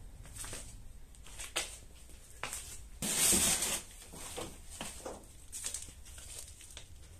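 Footsteps crunching and rustling over scattered paper and litter on a floor, a string of short rustles and clicks with one louder, longer rustle about three seconds in.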